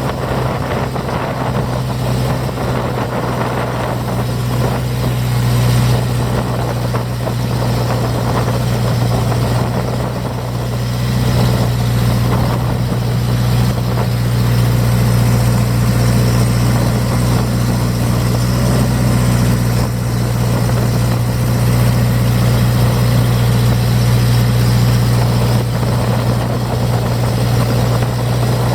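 A boat's engine running steadily, a constant low drone, with a rushing noise of water and wind over it.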